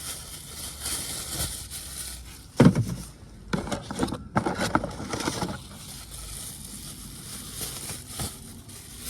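Hand work in an engine bay: a sharp knock a little over two seconds in, then a few seconds of clattering and rattling. Steady wind noise runs throughout.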